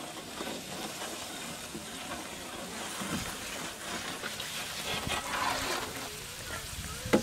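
Spiced egg-biryani gravy sizzling and bubbling in a wide, shallow steel pan over a wood fire, a steady hiss, as whole browned boiled eggs are dropped in by hand and then tipped in from a bowl. A sharp knock comes near the end.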